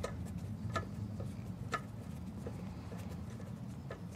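Hand ratchet clicking irregularly as it is worked on a spark plug of a Corvair aircraft engine, with a few sharp clicks a second over a steady low hum.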